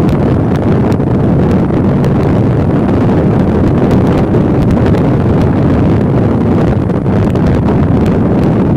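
Steady wind rushing over the microphone of a moving motorcycle, with the Hero Passion Pro's single-cylinder engine running underneath.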